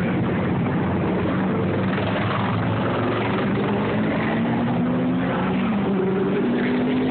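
Exposed, chrome-topped engine of a custom golf cart idling steadily, its pitch wavering slightly.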